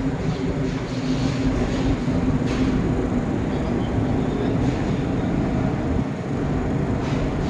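Aluminium melting furnace running: a steady, noisy rumble with a constant low hum.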